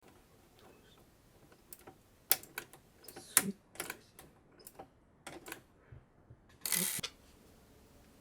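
A run of irregular sharp clicks and knocks from small hard objects being handled, ending in a short scraping burst about seven seconds in.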